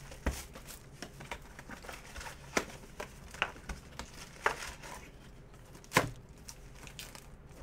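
Cardboard trading-card box being opened and its foil-wrapped card packs handled: scattered taps, clicks and light rustles, the sharpest about six seconds in.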